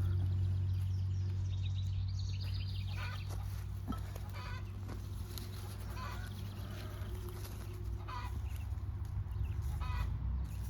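Chickens clucking in short repeated calls, starting about two seconds in, over a steady low hum.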